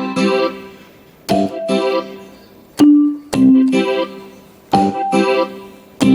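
Casio LK-280 electronic keyboard playing a piano-like voice. Chords are struck about every one and a half seconds and each dies away, with a few single held notes in between.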